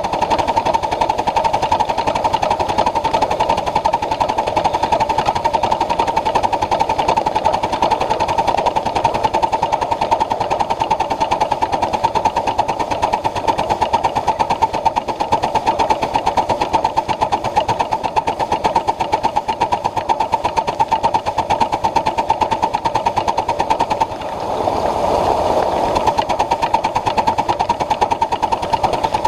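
Ride-on live steam Pacific locomotive on the move, a fast, steady clatter of its wheels and running gear on the miniature track. Near the end the clatter gives way for about two seconds to a smoother, slightly louder rush.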